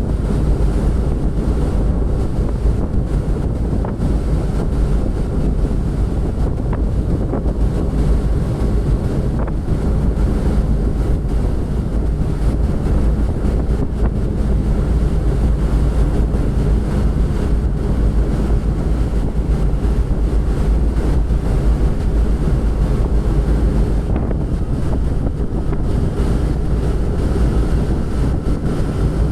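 Wind buffeting the microphone over the rush of sea water, steady throughout, with a low steady hum underneath.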